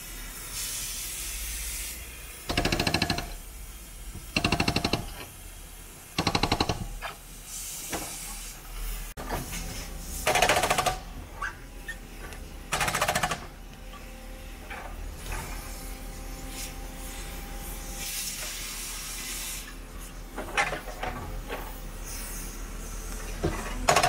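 Hydraulic breaker hammering concrete in short rattling bursts, five or so, each under a second, over a steady background of machine noise and hiss.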